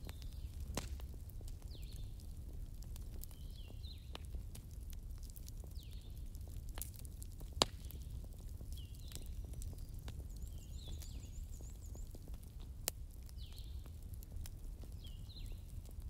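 Wood fire in a fireplace crackling, with scattered sharp pops over a low steady rumble; two pops, about eight seconds in and near thirteen seconds, stand out as the loudest. Faint short high chirps recur every second or two.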